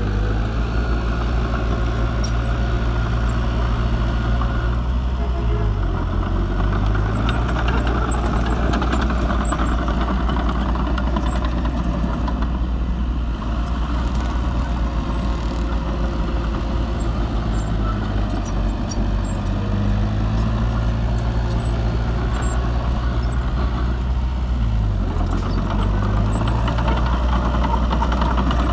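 Small crawler bulldozer's diesel engine running steadily under load while it pushes soil. Its note dips in pitch and recovers twice, about six seconds in and near the end.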